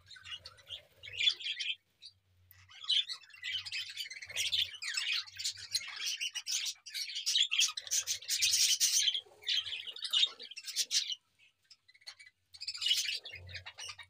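A flock of budgerigars chattering and chirping together, a dense run of quick high chirps that falls briefly quiet about two seconds in and again near the end.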